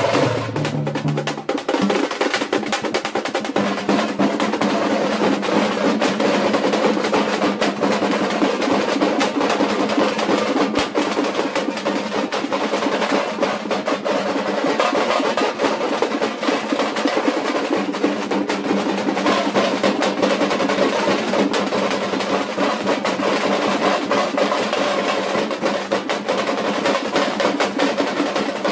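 Many thamate (tamate) frame drums beaten together with sticks in a fast, dense rolling rhythm that keeps up without a break.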